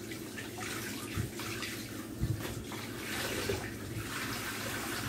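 Kitchen tap running into a sink as things are rinsed under it, with a couple of soft knocks about one and two seconds in.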